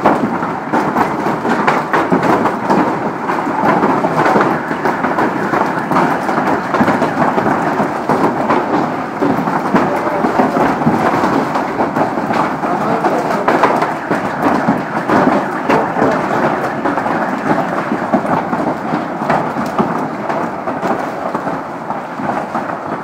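Heavy hailstorm: hailstones pelting the pavement and parked cars in a dense, steady clatter of countless small impacts, mixed with rain.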